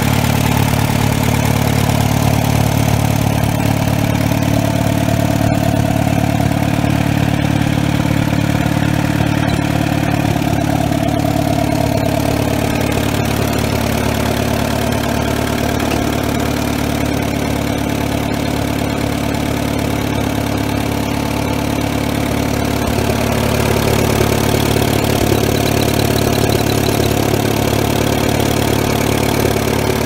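1955 Allis-Chalmers D270 tractor's four-cylinder spark-ignition engine idling steadily.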